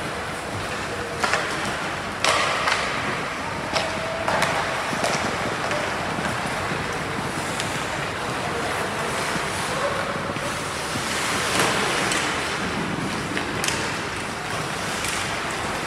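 Ice hockey play in a rink: a steady haze of skates on the ice and arena noise, broken several times by sharp knocks of sticks and puck, the loudest a little over two seconds in.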